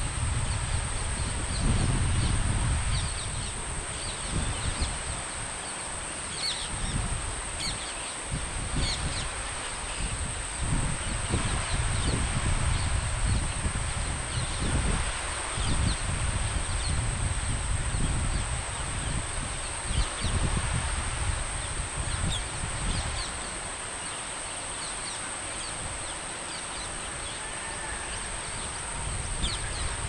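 Water pouring over a curved concrete spillway weir in a steady rush, with wind buffeting the microphone in low gusts. A steady high-pitched whine runs underneath, and brief bird chirps come through here and there.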